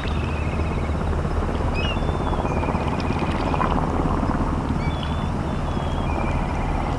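Low steady drone of a ship's engines as the vessel comes into harbour. Over it, a bird twice sings a short high note followed by a rapid trill.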